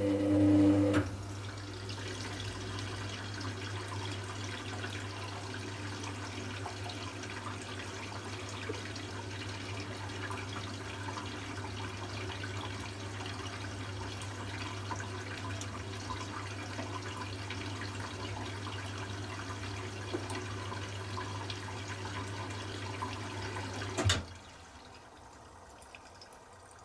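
Hoover Classica 1100 AC164 washing machine taking in water for its final rinse: water rushing in steadily over a low electrical hum from the inlet valve. A pitched motor hum stops about a second in, and the flow and hum cut off sharply with a click about 24 seconds in as the valve shuts.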